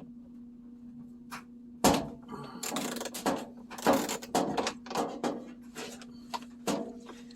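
Hands and tools knocking, clunking and scraping against the washer's drain pump and hose fittings while loosening them, a dense run of sharp knocks starting about two seconds in. A faint steady hum lies underneath.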